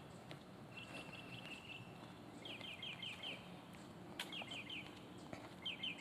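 Faint songbird calls: a quick run of even high chirps, then repeated groups of four or five rapid down-slurred whistled notes about a second apart.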